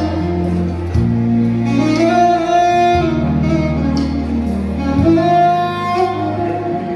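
Instrumental music, with held bass notes that change every second or two under a melody.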